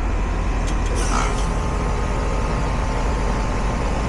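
Heat pump outdoor unit running with a steady hum and whoosh, with a few faint clicks about a second in.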